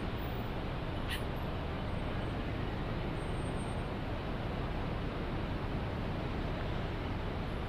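Steady hum of city traffic, an even rushing din with no single vehicle standing out, and one short high click about a second in.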